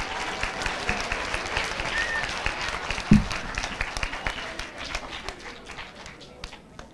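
Audience applauding, the clapping thinning out and fading near the end, with one dull thump about three seconds in.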